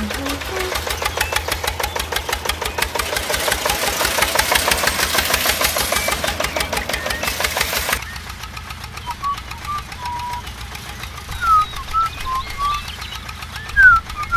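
A small engine chugging in a rapid, even rhythm for about eight seconds, then cutting off abruptly. After that comes a quieter stretch with scattered short high squeaks.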